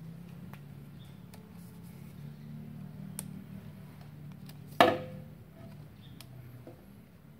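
A single sharp knock with a brief ringing tone about five seconds in, over a low steady hum and a few faint ticks.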